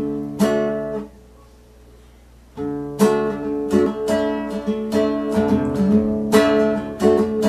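Acoustic guitar strumming a song intro: a chord rings for about a second, a short pause follows, then steady strumming resumes about two and a half seconds in.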